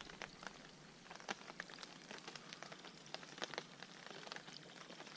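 Light rain falling, with scattered drops ticking irregularly close by over a faint hiss.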